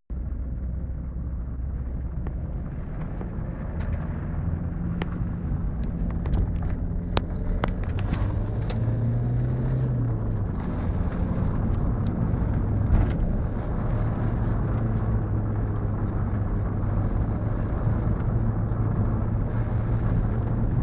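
Car engine running and road noise, heard from inside the cabin while driving slowly along a rough village road. The engine note rises and falls a little about halfway through. Scattered clicks and knocks are heard throughout.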